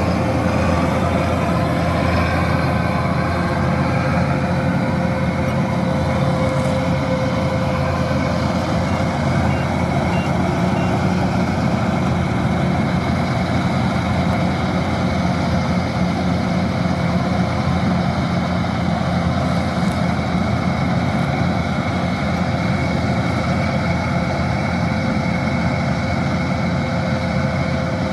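Kubota DC-108X combine harvester running steadily under load, its diesel engine humming low with a steady higher machinery whine over it.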